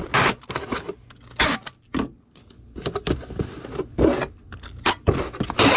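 Irregular rustling and scraping of packing materials being handled, in short bursts.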